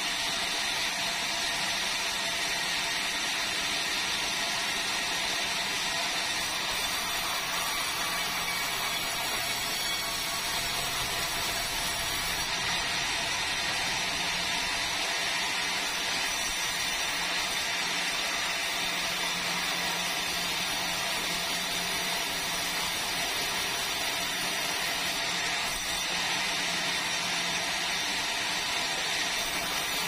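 Sawmill saw running steadily as red meranti timber is fed through and cut.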